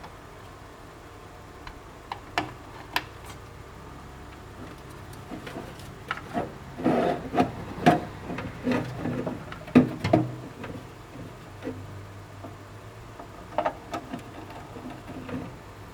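Irregular plastic clicks and knocks as a desktop power supply's cable connectors are handled and pushed into place inside a computer case, with a busy stretch of rattling handling in the middle.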